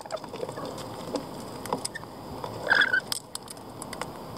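Rainbow lorikeets feeding at a wooden seed tray: scattered small clicks and taps of beaks and feet on seed and wood, with one brief louder sound about three seconds in.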